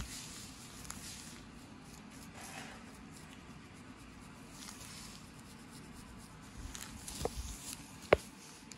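Tail comb scratching and scraping along a dandruff-covered scalp, loosening the flakes, in soft, faint strokes. A few low bumps come near the end, then one sharp tap.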